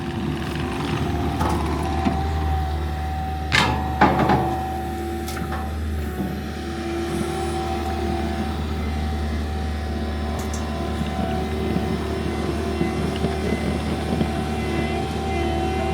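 Bobcat T76 compact track loader running steadily under its stump grinder attachment, with two sharp loud knocks about three and a half and four seconds in.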